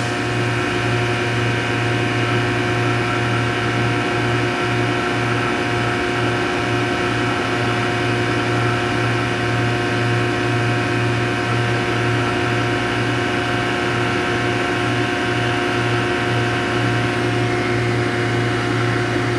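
Rubber-latex centrifuge machines running steadily: an even low hum with a set of steady higher tones above it.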